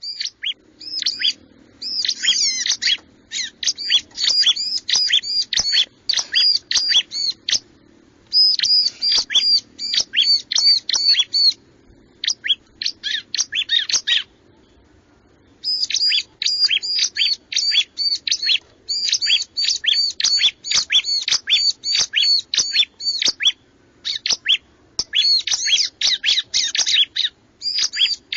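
Bar-winged prinia (ciblek) song: fast runs of sharp, high chirps in repeated bursts, with a pause of a few seconds about halfway, over a faint low hum.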